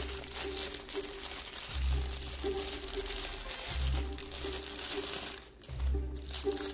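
Clear plastic figure packaging crinkling and rustling as it is handled, over background music with a slow, repeating bass line.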